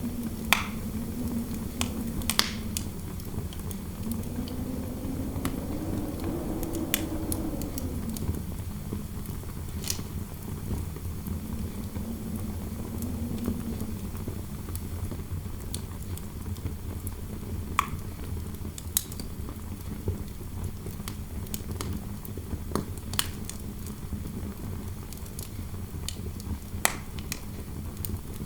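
Wood fire crackling with scattered sharp pops, over a low howling wind that rises in pitch and swells about five to seven seconds in, then sinks back.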